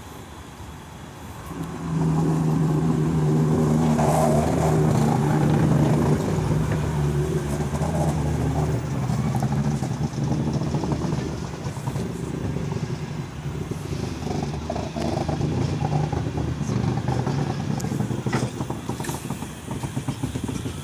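A train going by close at hand with a steady low engine drone. It starts about two seconds in and eases off near the end.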